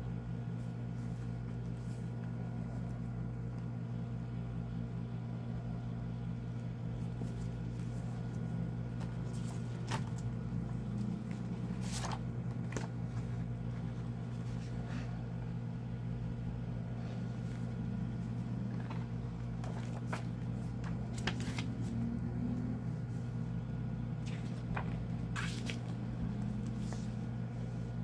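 Paper pages of a softcover book being handled and turned by hand, giving short crisp rustles and taps scattered through the middle and second half. Under them runs a steady low hum, which is the loudest sound.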